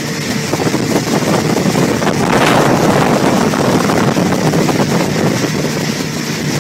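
Motorboat engine running steadily at towing speed, mixed with the rush of wind on the microphone and water churning in the wake. A louder rush of noise comes about two seconds in.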